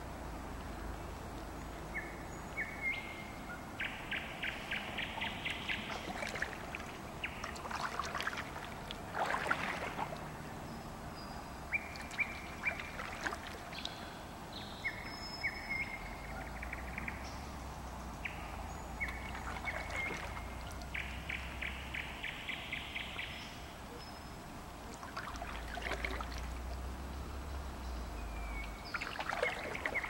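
A songbird singing repeated phrases of short high notes and fast trains of rapid notes, with kayak paddle strokes splashing and dripping water now and then.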